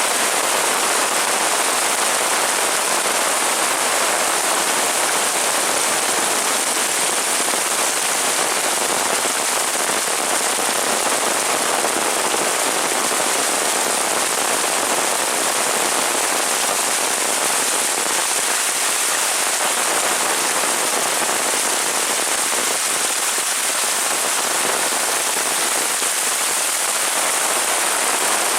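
Heavy rain pouring down steadily, a dense even hiss of drops hitting surfaces.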